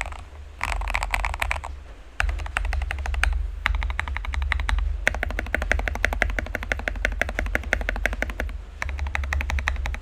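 Fast typing on an RKG68 mechanical keyboard with lubed Gateron Milky Yellow linear switches and XDA keycaps, dampened with tape, foam and polyfill mods, giving a thocky keystroke sound. A short burst of keystrokes comes first, then about half a second of pause, then a dense, continuous run of keystrokes. A steady low hum lies underneath.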